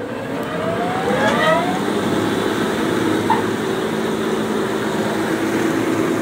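Electric rice-husking (paddy huller) machine switched on, its motor running up to speed with a rising whine over the first two seconds, then running with a steady drone.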